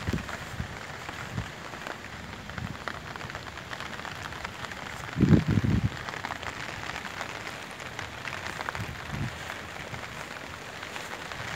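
Rain falling on wet ground and leaves: a steady patter of fine crackling drops. A brief loud low thump comes about five seconds in.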